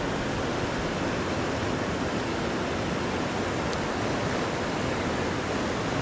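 Fast-flowing river water rushing steadily past the bank.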